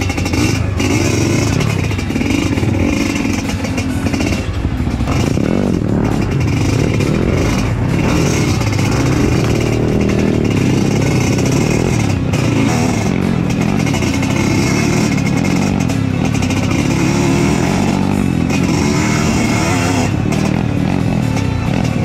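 Trail motorcycle engine running steadily while riding, with scattered clicks and knocks over it.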